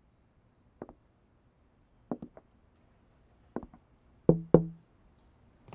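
Knuckles knocking on a car window: faint single and paired knocks that grow louder, ending in two loud raps with a short ringing tone.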